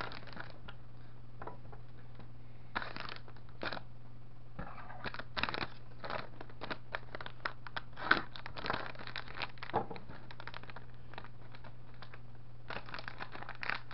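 Plastic packaging crinkling and rustling in irregular bursts as a small box of cables is opened and the bagged cables handled, over a low steady hum.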